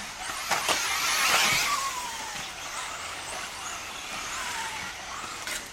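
1/10 scale electric 4WD off-road RC buggies racing on a dirt track: electric motors whining, with one whine falling in pitch as a buggy slows about a second and a half in, over a hiss of tyres on dirt. Sharp knocks just under a second in and again near the end, as from buggies landing jumps.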